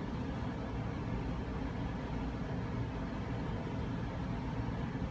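Steady low rumble and hiss of background room noise, with no distinct knocks or other separate sounds.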